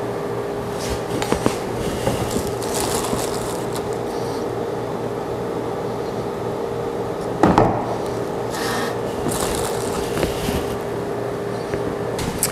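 Steady hum of a workshop fan, with the crinkle of a plastic bag of wood biscuits being handled now and then and a single knock about seven and a half seconds in.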